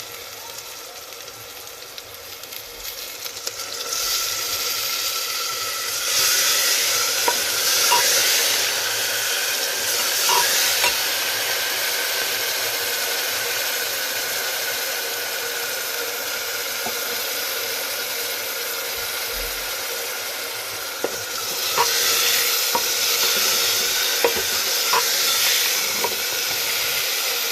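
Ground onion paste sizzling as it fries in hot oil with spices, stirred with a spoon that clicks against the pan now and then. The sizzle grows louder about four seconds in and swells again about three-quarters of the way through.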